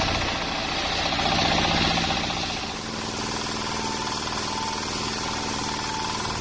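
Sawmill machine running with a fine, regular engine-like pulse. It is louder for the first three seconds or so, then drops to a lower, steadier running sound.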